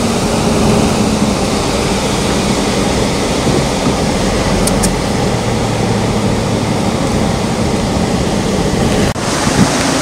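Steady road and wind noise in a moving car, with a low engine hum underneath. It cuts out for an instant near the end.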